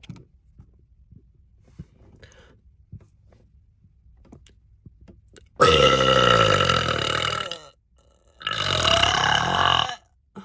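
A woman letting out two long, loud burps a short pause apart, the first about two seconds long and the second about a second and a half.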